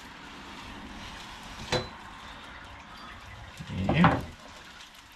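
Knife working through a large fish on a wooden cutting board, with one sharp knock about a second and a half in, over a steady hiss.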